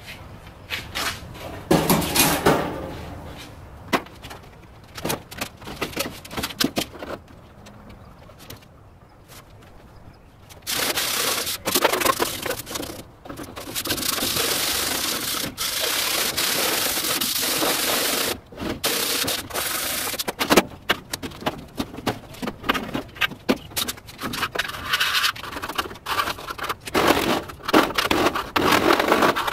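Metal parts of a rusted gas grill knocking and clanking as it is taken apart, with a stretch of steady rough scraping lasting nearly ten seconds about a third of the way in.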